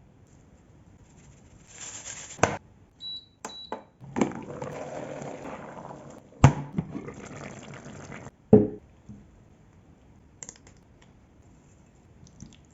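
Wet kitchen sounds of stewed vegetables being poured or spooned out, a longer stretch of liquid noise that stops abruptly, with a few sharp knocks of a utensil against a pot or plate.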